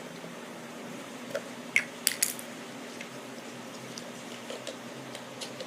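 Small plastic toy parts clicking and clattering as they are handled and searched through, with the sharpest clicks about two seconds in, over a steady low hum.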